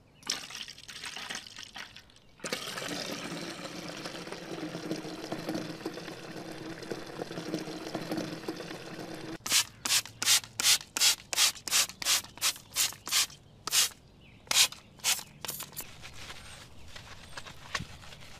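Scrubbing by hand on a car's surface in quick back-and-forth strokes, about three a second, with a short pause before a last few strokes. Before the scrubbing there are several seconds of a steady hiss with a low hum.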